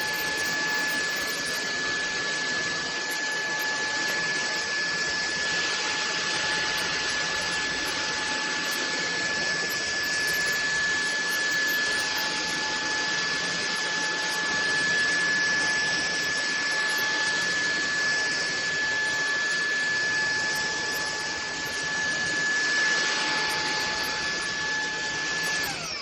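Bulelink cordless stick vacuum running steadily: a constant high motor whine over the hiss of its airflow. It is switched off at the very end, and the whine falls away as the motor spins down.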